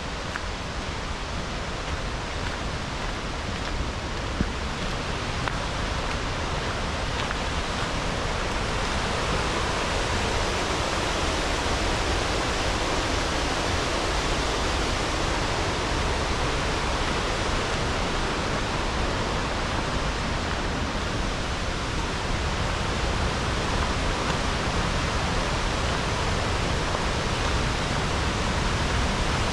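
Steady rush of running water, growing louder over the first ten seconds or so and then holding steady.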